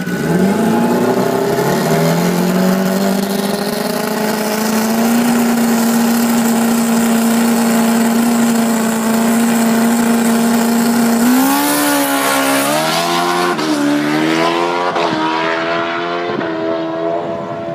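Custom Suzuki Hayabusa drag bike's four-cylinder engine revs up and is held at steady high revs while the bike stays in place in a burnout. About eleven seconds in it pulls away, the revs dropping and climbing again at each of several quick upshifts.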